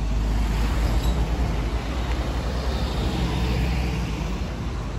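Street traffic: a steady low rumble with road noise from passing cars.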